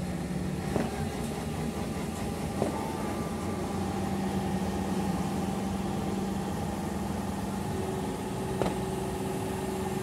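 Diesel engine of a large all-terrain mobile crane running steadily, with a few short knocks about a second in, near three seconds in and near the end.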